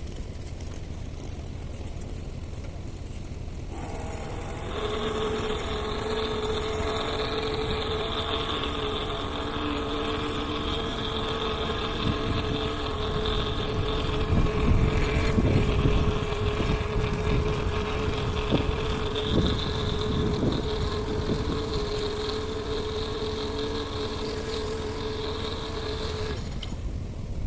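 An engine running at a steady speed, its hum holding one pitch for about twenty seconds before cutting off, over a low rumble.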